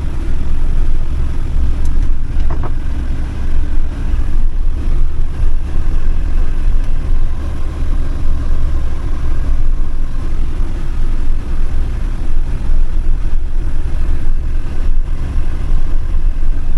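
Campervan driving along the road, a steady low rumble of engine and road noise.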